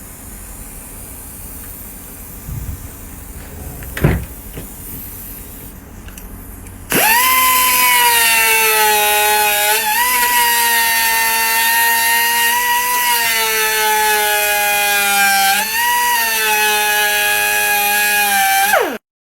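An electric power tool's motor spins up about seven seconds in and runs with a loud, steady high whine, wavering slightly as it is loaded, then winds down and stops near the end. Before it, only a low background noise with a single knock.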